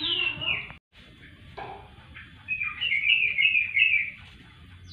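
High-pitched animal chirping: a falling squeal at the start, then a quick run of short chirps from about halfway through.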